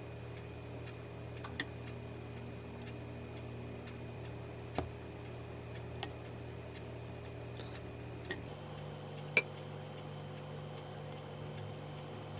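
A wooden spoon knocking against a glass mixing bowl while rice is scooped out: five light, sharp clicks spread out, the loudest near the end, over a low steady hum.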